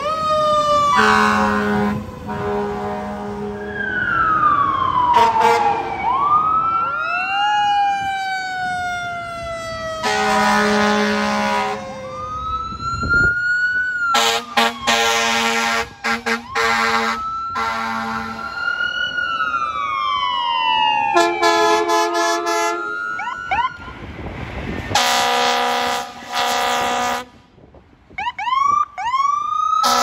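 Fire engines' air horns and sirens: several long air horn blasts, each a steady chord, alternating with sirens sliding up and down in pitch, with abrupt cuts from one engine to the next.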